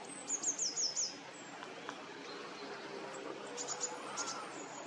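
Water running steadily out of a dike, with a small bird calling over it: a quick run of high down-slurred notes early on the loudest, and a few more chirps a little past the middle.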